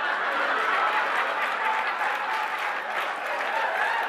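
Studio audience applauding loudly and steadily, with cheering voices mixed in.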